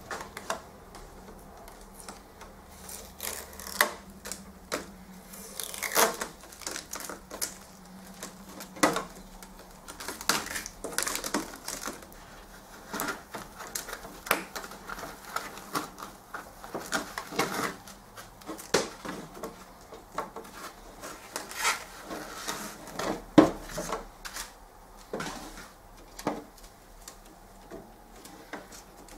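Packing tape being peeled and torn and packing material being handled, in irregular rips, crinkles and light knocks.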